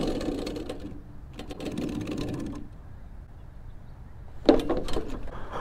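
Electric drift kart (Razor Crazy Cart XL with an upgraded motor and chain drive) running over pavement: a mechanical whirring and rattling that fades as it slows, then picks up again in a short burst about a second and a half in. Near the end come two short, louder noises.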